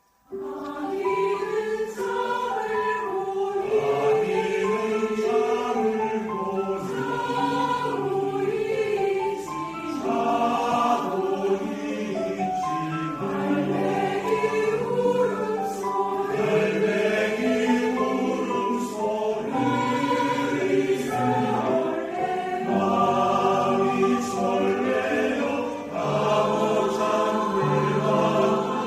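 A choir singing in several parts at once, with sustained sung notes and a shifting melody.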